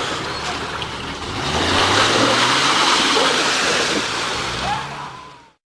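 Jeep Cherokee XJ's engine revving up as the Jeep drives through a muddy puddle, with a loud rush of splashing water; the sound cuts off suddenly near the end.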